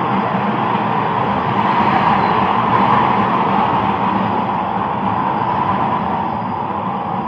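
Steady vehicle noise: a loud, even rumble without breaks or distinct events.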